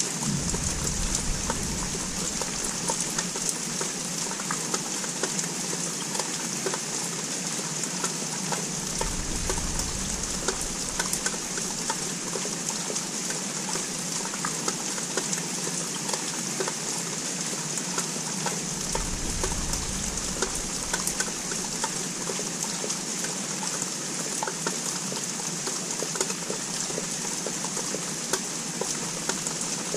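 Steady rain from a small thunderstorm: an even hiss dotted with many small drop ticks. Three brief low rumbles come through, near the start, about a third of the way in and about two thirds of the way in.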